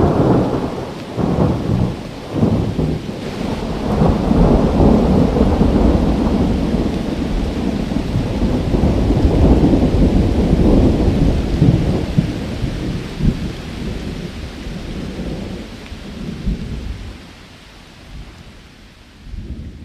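Rolling thunder over steady rain during a rainstorm. The low rumble swells and eases in long waves, then fades away over the last few seconds.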